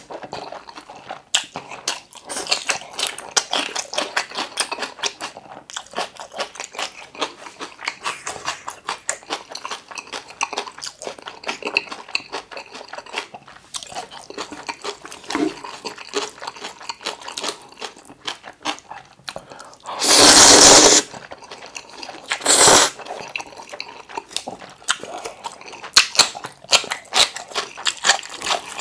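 Close-miked chewing of curry ramen noodles: a dense run of small wet mouth clicks and smacks. About two-thirds through come a loud noodle slurp lasting about a second and a shorter slurp soon after.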